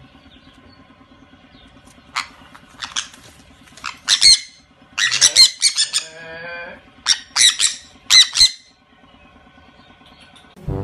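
Sun conures screeching in a series of short, harsh squawks while play-fighting, starting about two seconds in. A lower, wavering call sits in the middle of the run.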